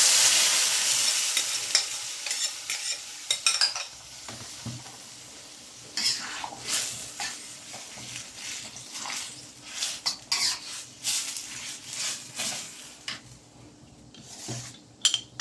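Marinara sauce sizzling in a hot wok of frying minced chicken, loud at first and dying away over the first few seconds; then the sauce is stirred in the wok, with a run of scrapes and clicks.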